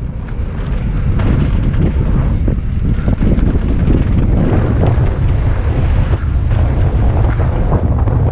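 Heavy wind buffeting on a moving camera's microphone during a fast downhill mountain-bike run, with a constant rumble and frequent rattles and knocks from the bike over rough trail.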